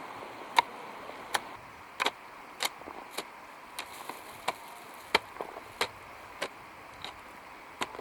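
A hand tool chopping in a steady rhythm, about one sharp strike every two-thirds of a second, with a short pause near the end.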